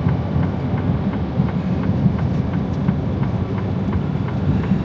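Freightliner Cascadia semi-truck cruising at highway speed, heard from inside the cab: a steady low drone of engine and road noise, with faint scattered ticks.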